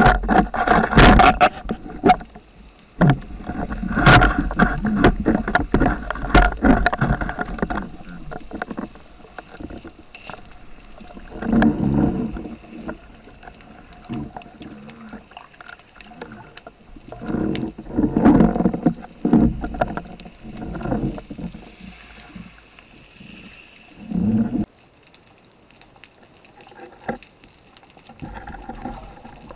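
Water rushing and sloshing against an underwater camera as a spearfisher swims, in repeated surges a few seconds long with scattered clicks and knocks.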